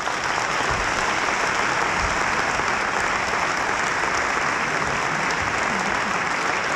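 Large audience applauding steadily, a sustained round of clapping in a hall.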